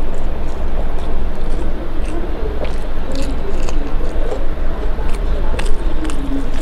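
Close-up chewing and mouth-smacking of rice and soyabean curry eaten by hand, with scattered wet clicks, over a steady low rumble.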